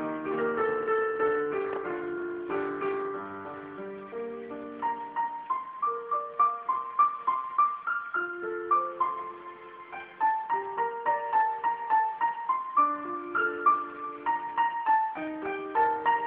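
Keyboard played with a piano sound: a slow melody of single notes over held chords. The playing softens briefly about ten seconds in, then picks up again.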